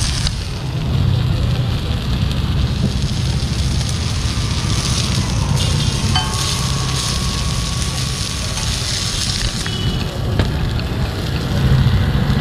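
Fish frying and sizzling on a large flat iron griddle over a wood fire, with a metal spatula scraping across the pan about halfway through and again near the end, over a steady low rumble.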